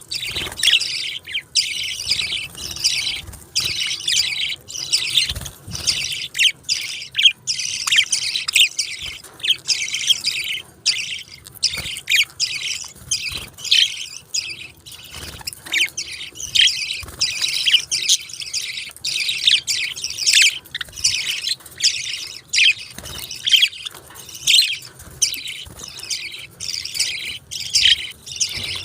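A group of budgerigars chirping and chattering, a dense, unbroken stream of short high chirps and squawks.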